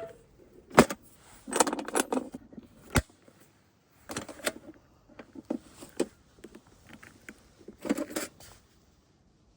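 Small hard objects being handled: a series of sharp clicks and knocks with short bursts of metallic rattling, like keys or gear jangling, in irregular bunches with pauses between.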